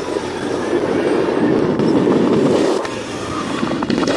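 Sonny Fireworks 'Naya Naya Pyaar' sky shot firing: dense crackling from a burst of falling, twinkling stars, loudest in the middle and easing off about three seconds in. Near the end come a few sharp pops as the next shot goes up.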